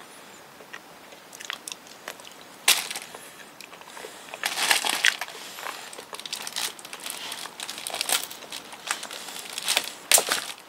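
Thin plastic bag crinkling and rustling in irregular bursts as hands work a banana free from a bunch lying on it, with a few sharp cracks. The loudest crack comes about a quarter of the way in and another near the end.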